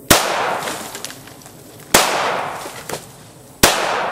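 Glock 19 Gen 4 9mm pistol fired three times, a shot every one and three-quarter seconds or so, each report trailing off in a long echo.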